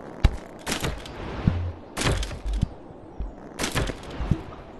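A sharp click, then a few short, rough crunching noises roughly every second and a half, over a low rumble.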